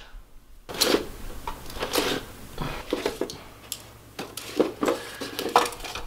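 Clicks and clatter of hot-swap hard-drive caddies being unlatched, slid out of a rack server's front drive bays and set down, an irregular string of sharp knocks, some with a short metallic ring.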